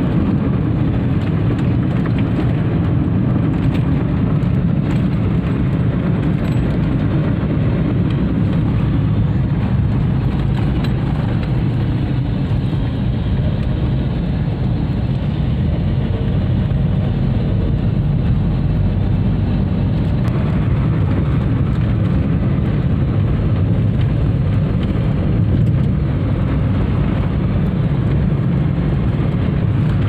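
Steady road and engine noise heard from inside a moving car's cabin, a low even rumble with no change in pace.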